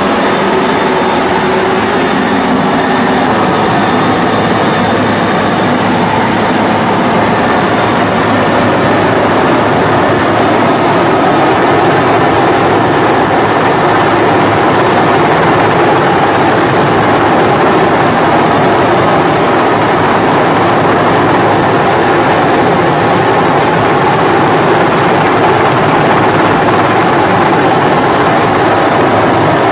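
Rescue helicopter's engine and rotor noise, loud and steady, heard from inside the cabin at the open door while the hoist is in use.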